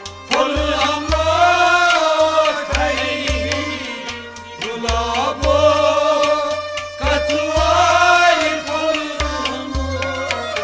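Instrumental folk music passage: harmonium, a bowed string instrument and a plucked long-necked lute play a wavering, sliding melody over a steady beat of hand drums. The playing eases off briefly about four seconds in.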